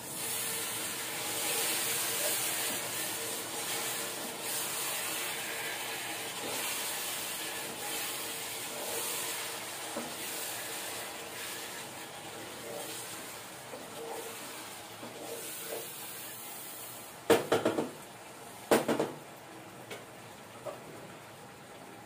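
Chicken being stirred with a spatula in a pot on the stove burner: a steady hiss of cooking with soft scraping. Near the end come two sharp metal clanks about a second and a half apart.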